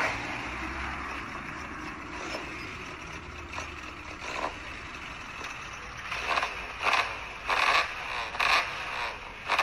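Classic Mini's A-series four-cylinder engine idling with a steady low rumble, then, in the last few seconds, a string of about five short, sharp blips, roughly one or two a second.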